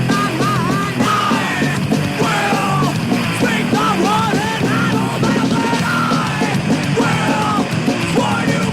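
Thrash metal with a punk edge played by a full band of distorted electric guitar, bass and drums, from a 1993 cassette tape, with high notes that bend up and down and a shouted, yelling quality.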